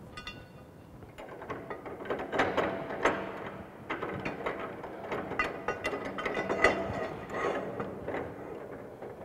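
Steel pipe being worked in a bench pipe vise: a run of irregular metallic clicks and scrapes with a ratcheting character, starting about a second in.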